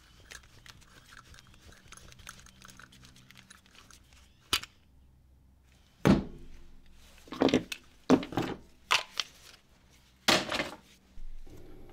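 Hard knocks and thunks from a string trimmer being dismantled, about eight loud, irregular blows starting about six seconds in, after faint small clicks and one sharp click.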